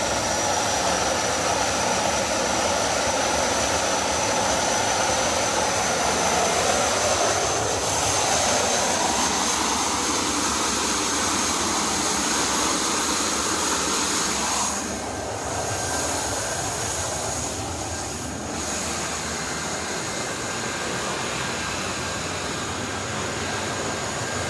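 Concorde's Olympus 593 turbojet engine running on a ground test rig: a steady jet rushing noise with a thin high whine that creeps slightly up in pitch. The level drops a little about fifteen seconds in.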